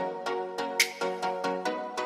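Electronic background music: a quick run of pitched synth notes, with one sharp percussive hit a little under a second in.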